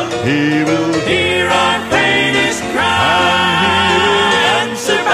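Gospel group singing with instrumental backing, several voices holding notes and sliding between them over a steady low bass note sung in chest voice.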